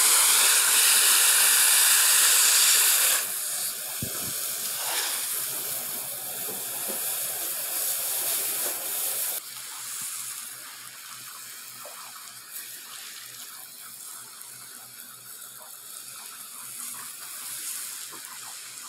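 Garden hose spray hitting the soil of a planter and the flagstone, a loud steady hiss that drops away about three seconds in. Softer running water follows, fading further about nine seconds in.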